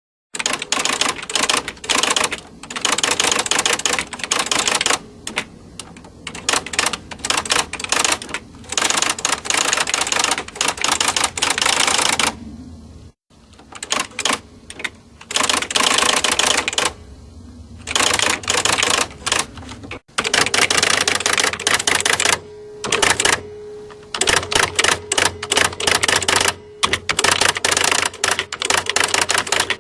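Typewriter keys being struck in quick runs of sharp clacks, broken by short pauses every few seconds.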